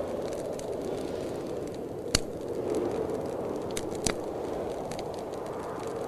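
Fireplace wood fire crackling, with scattered small snaps and two sharp pops about two and four seconds in, over a steady rushing noise.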